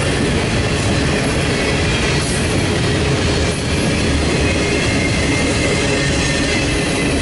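Double-stack intermodal container train's well cars rolling past: the steady, even noise of steel wheels on the rails.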